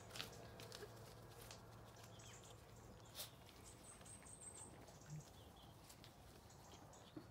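Near silence with faint, scattered crunches and clicks of alpacas chewing windfall apples and feed; a faint high chirp about four seconds in.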